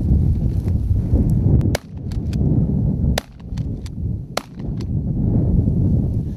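Three shotgun shots, about a second and a half apart, over a steady low rumble of wind buffeting the microphone.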